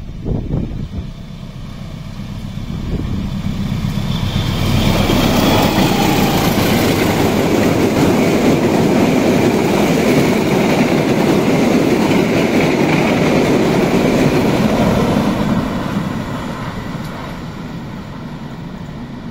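Diesel-electric locomotive hauling a rake of passenger coaches passes close by: engine drone and wheel and rail rumble build over the first few seconds, stay loud for about ten seconds as the coaches roll past, then fade as the train moves away.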